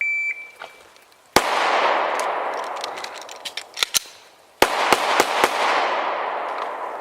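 Shot timer beep, then a Glock 17 9mm pistol fires a single shot that echoes long across the range. Small clicks of a magazine reload follow, and a second shot comes about three seconds after the first, on a slow reload split of 3.26 s.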